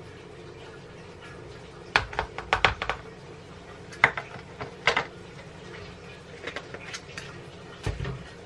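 Kitchen handling sounds: a quick run of clicks and knocks about two seconds in, then single knocks and small clicks as a plastic measuring cup and containers are moved on a granite countertop, ending in a heavier thud as a plastic buttermilk bottle is set down on the counter.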